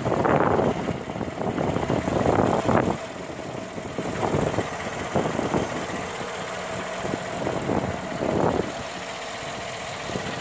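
GMC Sierra's 5.3-liter V8 idling steadily, heard close up in the open engine bay, with a faint steady high tone over the idle. It is louder for about the first three seconds, then settles.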